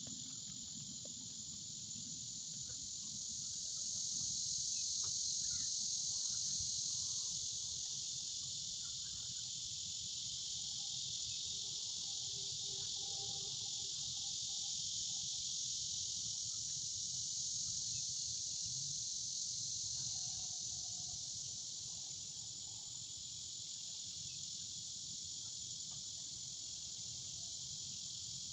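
Steady chorus of insects: a continuous high shrill that swells slightly a few seconds in, over a faint low rumble.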